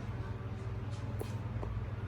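Steady low hum with a few faint, brief clicks about a second in.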